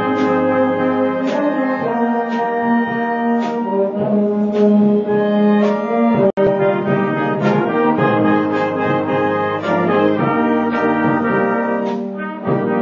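A school band playing a piece with brass to the fore, trumpets and trombones holding chords that move from note to note. The sound drops out for a moment about halfway through.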